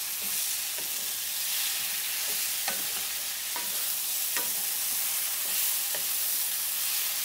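Wooden spatula stirring soya chunks and potato pieces through a thick masala in a non-stick pan, with a steady frying sizzle and a short scrape of the spatula against the pan every half second to a second.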